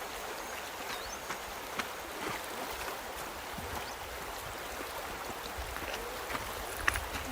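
River water flowing, a steady rushing hiss with small scattered ticks.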